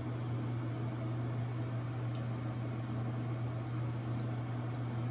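Steady low hum with an even hiss, the unchanging background drone of a machine such as a fan.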